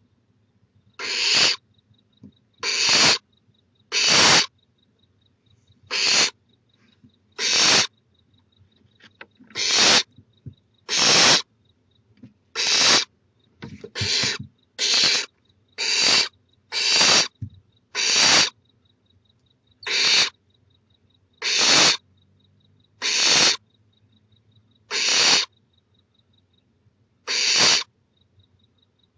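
Barn owl owlet "snoring": a long series of hoarse hisses, each about half a second long, repeated every one to two seconds and coming faster in the middle. This is the nestling's food-begging call.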